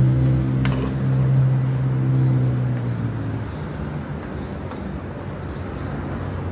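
Street traffic: a motor vehicle's engine drones at a steady pitch, then fades away about three seconds in, leaving a quieter wash of traffic noise. A single click sounds under a second in.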